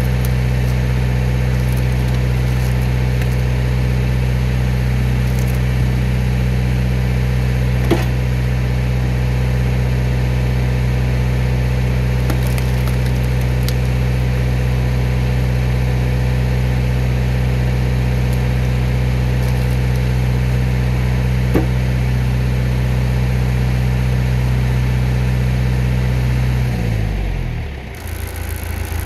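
John Deere tractor engine running steadily, driving a hydraulic log splitter through its closed-center hydraulics. There are two sharp cracks, about eight and about twenty-one seconds in, as logs split. Near the end the engine speed falls off quickly to a lower, quieter hum.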